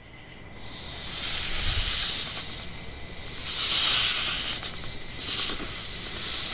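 Crickets and other night insects chirring steadily, with a hissing layer that swells and fades about three times.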